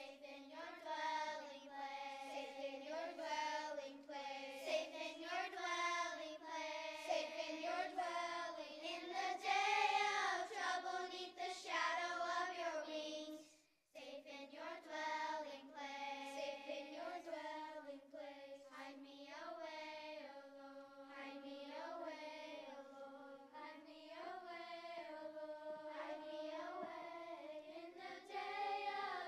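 A children's choir singing, the sound cutting out suddenly for a moment about halfway through before the singing carries on.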